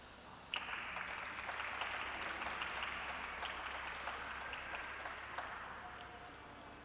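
Audience applauding. It breaks out suddenly about half a second in and slowly fades.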